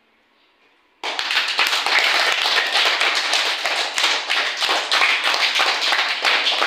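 A group of children applauding, many hands clapping at once. The clapping starts suddenly about a second in after near silence.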